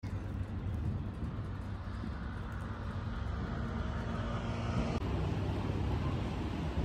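Motorcycle engine running steadily with a low hum, with an abrupt edit cut about five seconds in.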